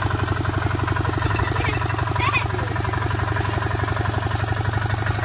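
Trâu Vàng diesel walk-behind tiller, its small single-cylinder diesel engine running steadily with a rapid, even knock as the machine is driven slowly forward.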